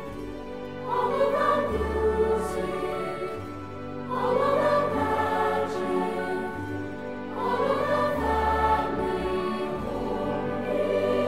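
Background music: a choir singing slow, sustained chords that swell about every three to four seconds.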